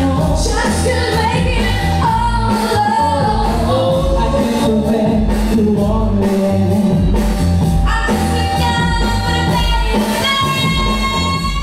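Pop song sung by women into microphones over a band with a steady beat, ending on a long held note.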